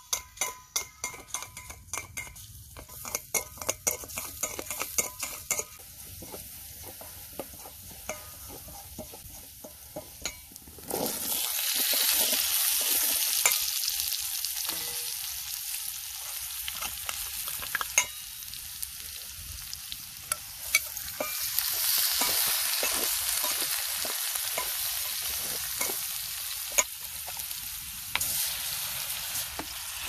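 Minced garlic frying in a stainless steel bowl over a wood fire. For the first few seconds chopsticks click rapidly against the metal as it is stirred. About eleven seconds in the sizzle jumps suddenly louder as straw mushrooms are tipped into the hot bowl, and it swells again about halfway through.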